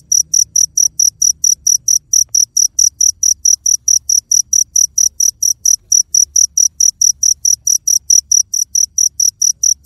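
A cricket chirping steadily and loudly, a high-pitched pulse repeated about five times a second without a break.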